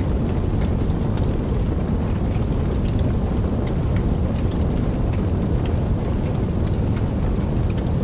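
Campfire burning: a steady low rumble of the flames with many small, scattered crackles and pops.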